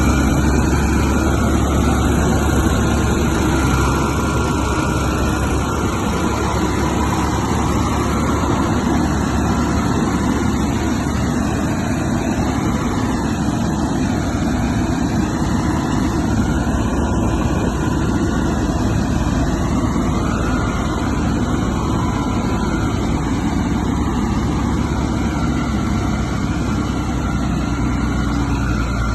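Caterpillar crawler bulldozer's diesel engine running steadily with a deep, low drone.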